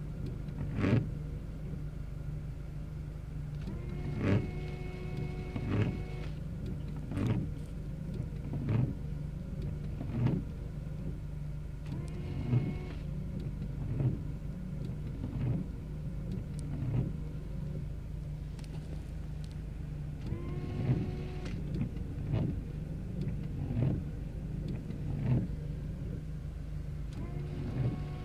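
A machine running with a steady low hum. Over it comes a regular knock about every one and a half seconds, several of them with a short squeak.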